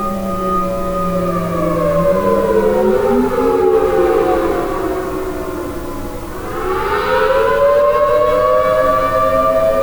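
Outdoor tornado warning sirens, a Federal Signal Thunderbolt 1000T and an American Signal T-128, sounding in their monthly test. Several siren tones overlap, winding down in pitch for about six seconds, then winding back up near the end, the rise and fall of a wailing cycle.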